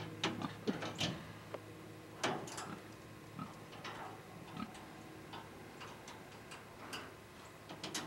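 Scattered light clicks and knocks at the pig's feeder, as the man handles the feeder box and the pig feeds at it, at irregular spacing with a faint steady hum underneath.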